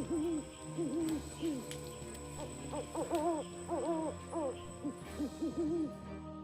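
Repeated hooting calls of a forest animal at night: short notes that rise and fall in pitch, several overlapping, about two or three a second.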